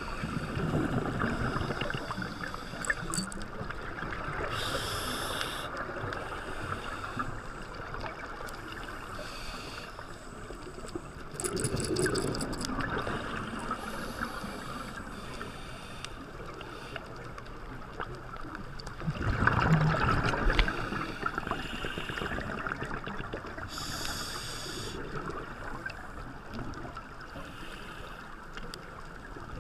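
Muffled underwater sound through a GoPro Hero 3's waterproof housing: a steady hiss and rumble of water, with bursts of scuba divers' exhalation bubbles every several seconds, the loudest about two-thirds of the way in.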